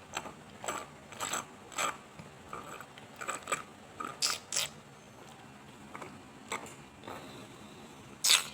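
A series of about a dozen short, sharp clicks at irregular intervals, with one louder click near the end.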